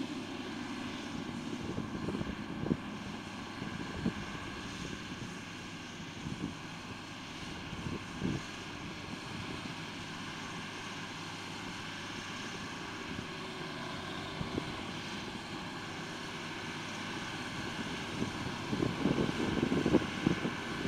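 Fendt tractor's diesel engine running steadily as it pulls a HAWE solid-manure spreader that is spreading, with a few dull thumps scattered through. It grows louder near the end as the rig comes close.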